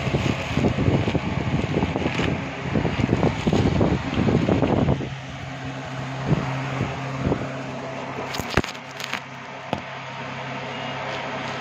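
Inflated air-column plastic packaging rustling and crinkling as it is handled for about the first five seconds. After that comes a steady electric fan hum, with a few light clicks near the end.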